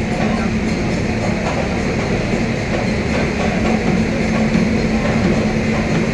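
Train at the station, a continuous rumble with a steady low hum running through it.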